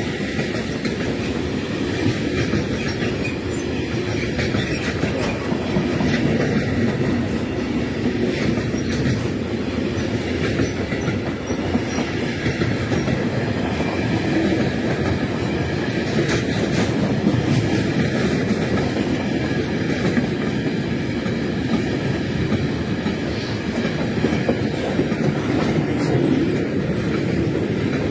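Long freight train's wagons rolling steadily past, a continuous rumble with the clickety-clack of wheels over rail joints.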